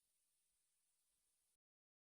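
Near silence: a very faint hiss that cuts off to digital silence about one and a half seconds in.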